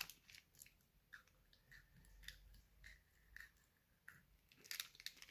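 Faint chewing of a Pocky chocolate-coated biscuit stick, heard as scattered soft clicks and small mouth sounds.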